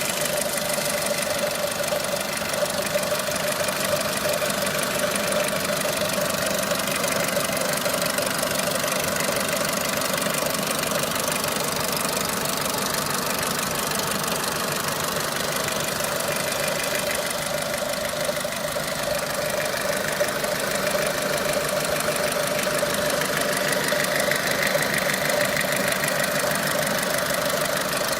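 Renault Clio III 1.4 16V four-cylinder petrol engine running steadily at a constant speed, with a steady mid-pitched drone; it is recorded as a noise that the owner is concerned about.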